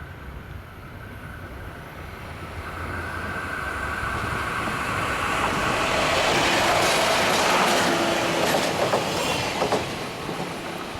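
A train passing close by over a level crossing. It grows louder to a peak about seven seconds in, with wheels clacking over the rail joints as it goes by, then begins to fade.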